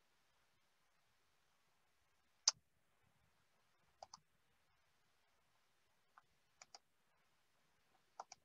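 Computer mouse clicking over near silence: one sharp click about two and a half seconds in, the loudest, then a few quick pairs of clicks a second or two apart.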